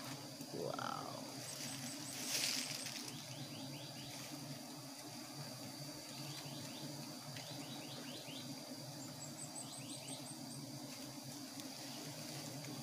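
Steady low hum of a colony of giant honeybees (Apis dorsata) at their open comb, with runs of short bird chirps and a steady high insect whine over it. A brief rustle comes about two seconds in.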